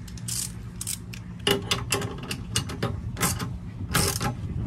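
Metal clicks and clunks from a catamaran's helm steering linkage, the tie-bar car on its track and its pins, as it is worked back and forth by hand to test for play. The knocks are the sign of a little play still left in the car. A steady low hum runs underneath.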